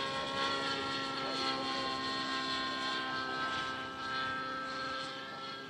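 Radio-controlled model helicopter with a glow-fuel engine flying aerobatics: a steady, high, many-toned whine of engine and rotors, easing off slightly near the end.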